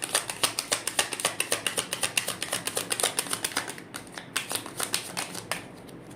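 Tarot cards being shuffled by hand: a quick, even run of card clicks, about eight a second, that stops about five and a half seconds in.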